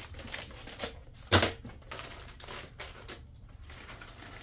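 Frozen peas being poured from a plastic bag into a slow-cooker liner bag: a run of hard little clicks and rattles with plastic crinkling, and one sharp knock about a second and a half in.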